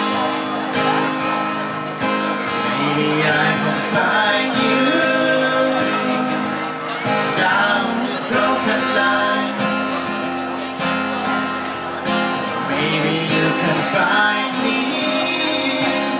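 Live acoustic duo: two acoustic guitars strummed with singing over them, heard through the stage microphones.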